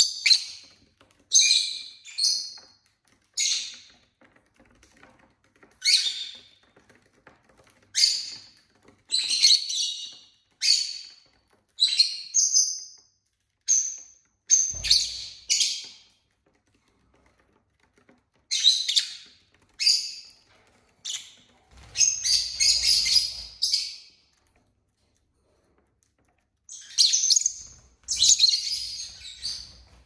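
Pet lovebirds chirping: short, sharp, high-pitched calls in irregular bursts, broken by a couple of pauses of about two seconds.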